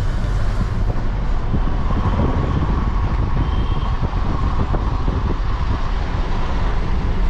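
Steady road noise of a moving car, a low rumble of tyres and engine with wind hiss, heard from inside the car.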